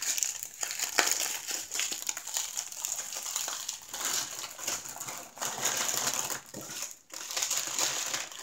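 Plastic packaging crinkling and rustling as the plastic-wrapped bundle of diamond-painting drill bags and the plastic-covered canvas are handled, with a brief pause about seven seconds in.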